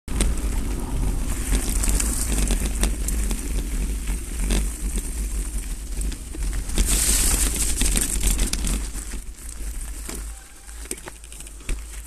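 Mountain bike riding fast over a loose gravel track: tyres crunching on stones, frequent rattling knocks, and wind buffeting the microphone. The noise dies down about ten seconds in as the bike slows and stops.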